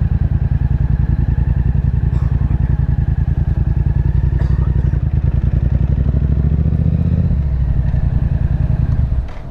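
Yamaha FZ-07's parallel-twin engine running at low revs as the motorcycle rolls slowly, a steady low pulsing. It shifts slightly in pitch about seven seconds in and drops away just before the end.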